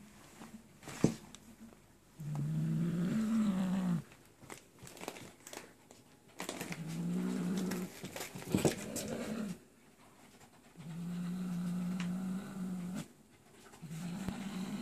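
Tabby cat growling low over a plastic bag of minced meat held in its mouth, guarding its food: four long, drawn-out growls of one to three seconds each. Short crinkles and snaps of the plastic bag come between the growls, the sharpest about a second in.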